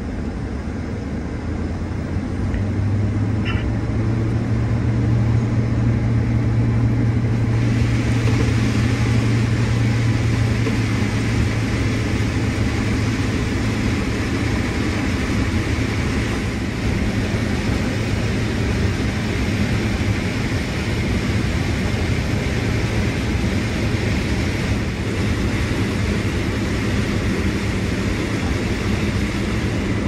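Combine harvester running steadily, its engine and machinery noise swelling over the first few seconds and then holding loud with a low hum.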